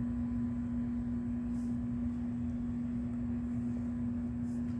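A steady hum at one constant pitch, over a low rumble.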